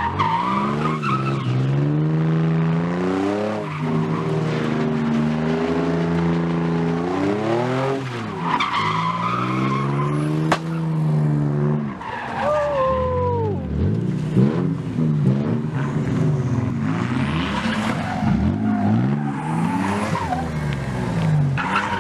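Drift cars sliding: engines revving hard up and down with tyres squealing. A single sharp bang about ten seconds in, as a tyre bursts.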